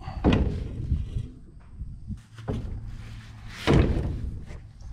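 Sheet-metal tractor side panels being set into a tank of water, clunking against the steel bar across it: two loud clunks, one just after the start and one near the end, with a smaller knock between.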